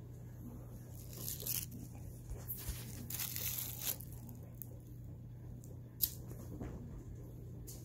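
Crinkling rustles of a foil crinkle-ball cat toy being handled, in bursts at about one and a half seconds and three to four seconds in, then a single sharp click about six seconds in.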